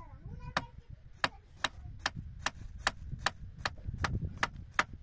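Sharp taps or knocks repeating evenly, about two and a half a second, over a faint low rumble.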